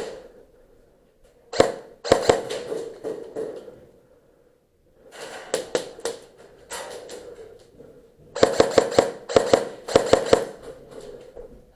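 Airsoft guns firing single shots and short bursts, with a quicker string of shots about two-thirds of the way through.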